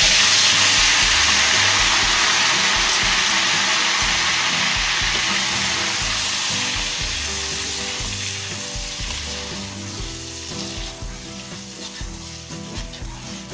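Blended red chilli paste frying in hot oil in a wok: a loud sizzle that starts as the paste goes in and slowly dies down as it is stirred.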